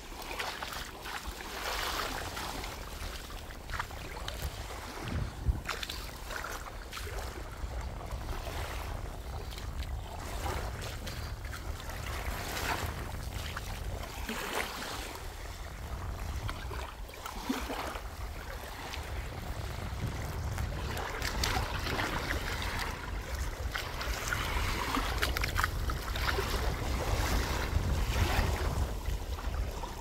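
Wind rumbling on the microphone over sea waves washing on the shore, swelling somewhat louder toward the end.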